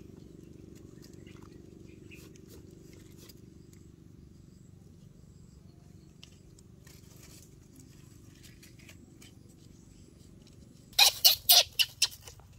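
Dry leaf litter crunching: a quick run of about six loud, sharp crackles near the end, over a low steady hum with faint scattered ticks.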